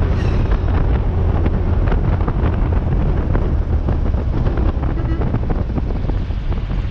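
Wind buffeting a camera microphone mounted on the outside of a moving 1974 VW Beetle, over the car's steady low rumble as it drives along the road.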